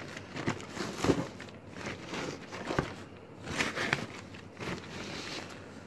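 Packaging being handled while a computer monitor is unboxed: scattered rustles of plastic and foam with light knocks and clicks.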